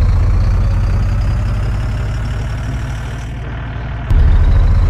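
Off-road Jeep engines running as they drive through mud, a steady low rumble that steps up abruptly louder about four seconds in.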